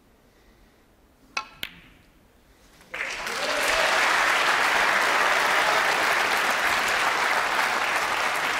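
Snooker shot: two sharp clicks close together, the cue tip striking the cue ball and the cue ball striking the black. About a second later the crowd starts applauding suddenly and keeps on steadily, for a difficult black potted during a maximum-break attempt.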